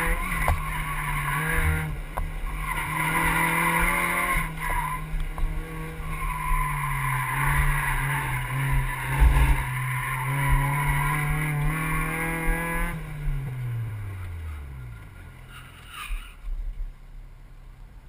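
Mazda MX-5 Miata's four-cylinder engine pulling hard through an autocross course, with tires squealing through the turns. About thirteen seconds in the revs fall away as the car slows at the end of the run.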